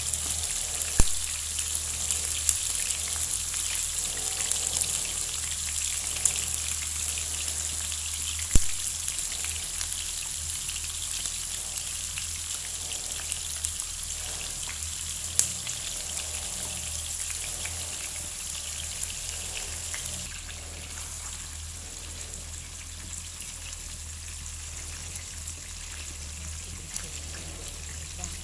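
Pork-stuffed squid sizzling in hot oil in a frying pan over medium heat: a steady crackling hiss, with a few sharp clicks. The sizzle gets a little quieter about two-thirds of the way through.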